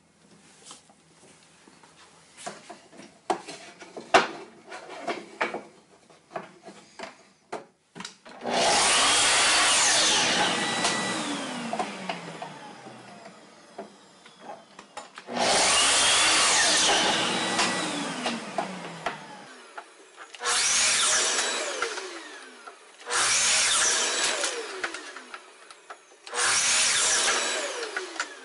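Makita miter saw started five times to chop wooden segments. Each run is a loud burst that falls away in pitch as the blade winds down. Before the first cut come several seconds of sharp wooden clicks and knocks as the stock is set against the stop.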